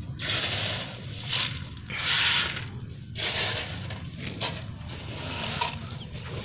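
Loose dried coffee cherries scraping and rustling in repeated strokes, roughly one a second.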